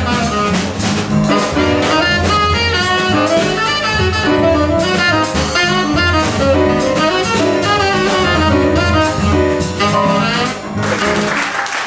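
Live jazz: a saxophone plays quick runs of notes over upright bass, piano and drums. Near the end the playing stops and applause starts.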